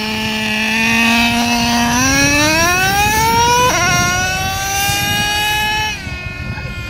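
Traxxas Revo 3.3 nitro RC monster truck's small two-stroke glow engine on a full-throttle speed run: a high, buzzing engine note that climbs steeply in pitch about two seconds in. The pitch breaks briefly near the middle, then holds high, and drops and fades about six seconds in.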